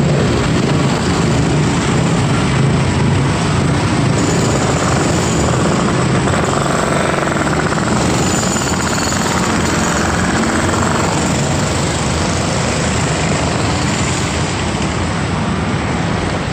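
Heavy road traffic going past: a steady wash of engine and tyre noise, with engine hum strongest in the first few seconds.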